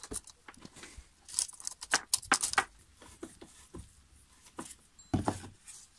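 Metal clinks and rattles of a saw chain, bar nuts and a combination spanner being handled as the chain and bar are refitted on a Stihl MS 391 chainsaw, with a busier flurry of clinks a second or two in and a single dull knock near the end.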